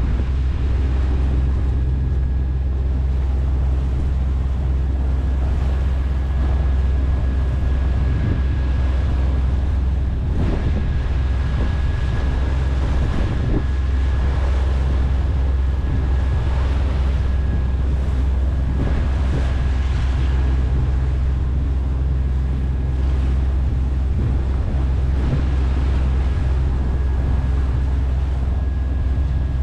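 Sailboat's inboard diesel engine running steadily under way, a constant low drone with a thin steady high tone over it, mixed with wind buffeting the microphone and water rushing past the hull.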